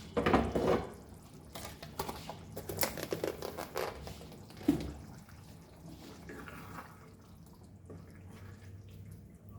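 Spoon stirring chicken in its wet gravy in a cooking pan: sharp scrapes and clinks against the pan with wet, liquid sounds, most of them in the first five seconds. After that, a faint steady hum.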